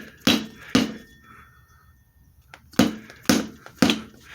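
Dead blow hammer striking a motorcycle's front wheel to drive the loosened fork tubes down through the triple clamps. Two blows, a pause of about two seconds, then three more blows about half a second apart.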